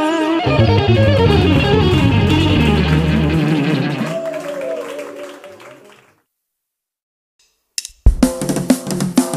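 Background music with guitar fades away, a second or two of silence follows, then another music track with a drum kit starts near the end.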